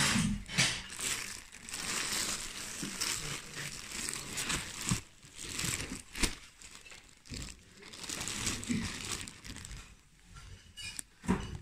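Plastic bags and fabric crinkling and rustling as hands rummage through a crate of textiles, in irregular bursts with short pauses.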